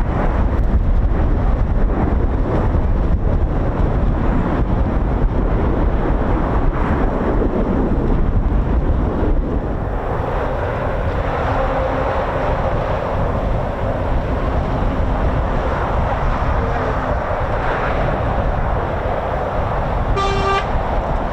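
Jet noise from the Red Arrows' BAE Hawk T1 aircraft mixed with heavy wind buffeting on the microphone. The jet sound is loudest in the first half and then eases. Near the end comes a brief horn-like toot.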